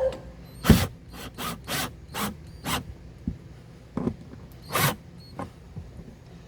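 Power driver run in short bursts, driving screws into a mount base: a string of brief, noisy pulses, about six close together in the first three seconds, then three more a little later.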